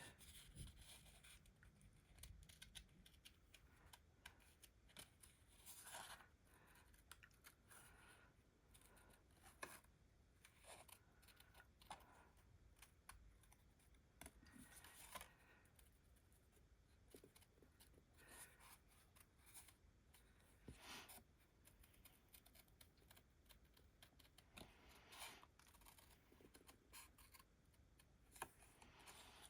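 Small scissors snipping through paper in faint, irregular snips, fussy cutting a stamped butterfly out close around its outline.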